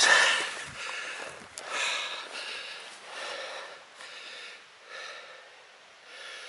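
A man breathing hard and heavily, a run of loud breaths every second or so with the first the loudest, out of breath from a slow uphill climb with a pack.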